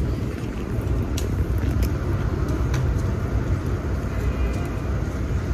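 Street traffic at a busy city intersection: a steady low rumble of engines and tyres, with a few faint clicks.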